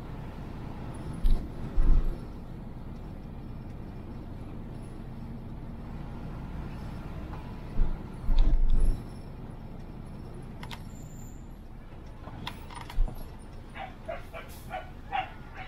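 Vehicle driving down a mountain road, a steady low rumble with a few heavy low thumps about a second and a half in and again about eight seconds in. Near the end a dog barks several short times.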